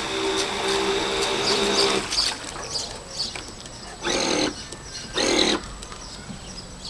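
The RC speedboat's outboard, driven by a 550-size brushed electric motor, whines steadily and cuts off about two seconds in. Two short bursts follow about a second apart as the motor is run briefly again.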